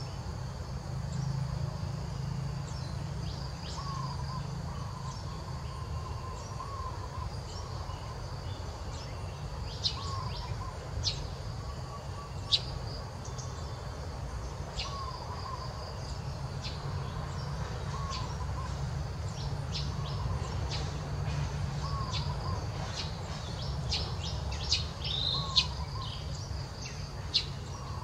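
Birds calling: one repeats a short note every two or three seconds, and sharp high chirps come more often in the second half. A steady insect drone and a low rumble run underneath.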